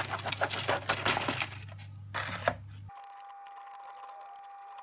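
Cardboard jigsaw puzzle pieces tipped out of their box, clattering and rustling onto the table, with a few more clicks about two seconds in. From about three seconds in only a faint steady hum remains.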